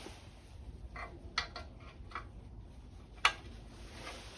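A few light metallic clicks and taps from tools and small parts being handled, with a sharper single click near the end.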